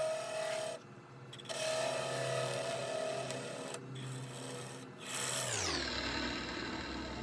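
Wood lathe turning a wooden shift knob blank, with a tool working the spinning wood and lifted off twice. About five seconds in the lathe is switched off and its motor whine falls in pitch as it spins down to a low hum.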